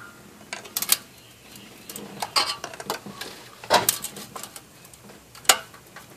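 Metal hand tools clinking, knocking and scraping against a Toyota 1ZZ-FE cylinder head that is stuck fast to the block. The knocks are scattered, some in short clusters about a second in, at about two and a half seconds and near four seconds, with the sharpest single knock about five and a half seconds in.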